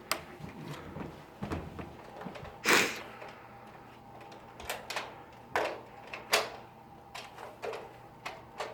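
Nerf Rival blaster being handled and test-fired: a sharp clack at the start, one louder short burst of noise about three seconds in, then several lighter knocks and clacks.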